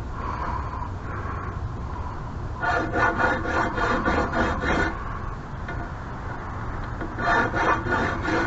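Triangle file rasping back and forth across the threads of a pipe end, in two quick bouts of strokes at about four to five a second, to clean up galled threads so the fittings will thread on.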